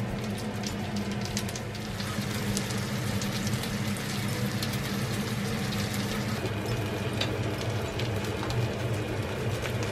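Oil sizzling and crackling in a cast-iron pan as egg-battered, meat-stuffed red bell pepper rings (jeon) fry, with a dense patter of tiny spits and pops. A steady low hum runs underneath.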